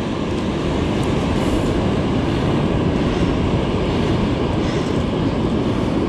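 Steady, even roar of breaking ocean surf and wind on the open beach, with no distinct events.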